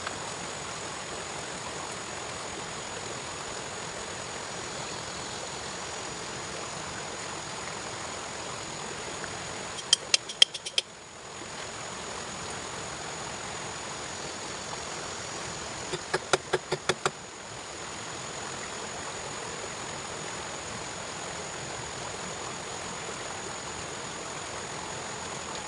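Steady rush of flowing water with a faint high steady whine, broken twice by a quick run of sharp clicks or taps, about ten seconds in and again about six seconds later.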